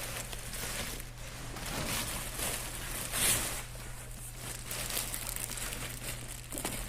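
Packaging being handled, rustling and crinkling, with a louder crinkle about three seconds in.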